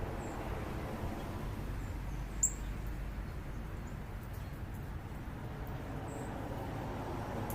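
A few brief, high songbird chip notes, one louder sharp downward chip about two and a half seconds in, over a steady low rumble of urban background noise.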